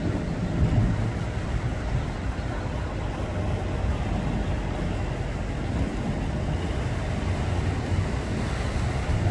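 Wind buffeting the microphone over the sea, a steady low rumble with a faint constant hum beneath it.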